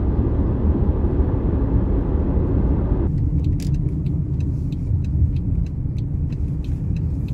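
Steady road and engine rumble heard inside the cabin of a moving car at expressway speed. About three seconds in the sound shifts to a lighter rumble with faint, irregular ticks.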